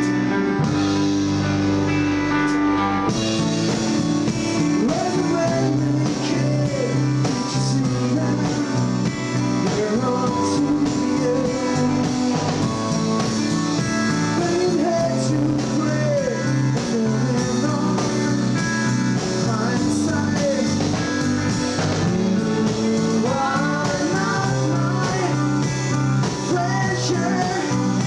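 A live band playing a song in a blues-rock vein: electric guitar, keyboard and drum kit. A wavering melody line runs over the chords from about three seconds in.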